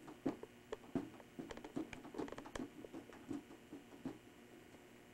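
Faint, irregular light taps and rubbing squeaks of a floating balloon being tugged down by its string and bumping about, many small touches over a few seconds.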